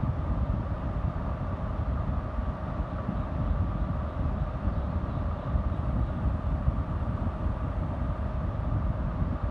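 Steady low rumbling background noise with a faint steady hum over it.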